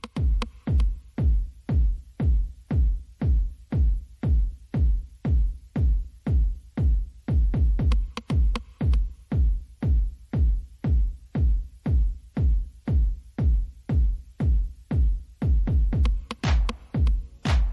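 Electronic background music driven by a steady, deep kick-drum beat, about two beats a second.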